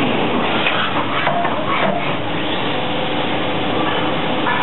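Muga Model Center R 450 S CNC vertical machining center running, its table traversing along the axes. It makes a steady mechanical whir with a faint whine, and a few clicks and knocks come in the first two seconds.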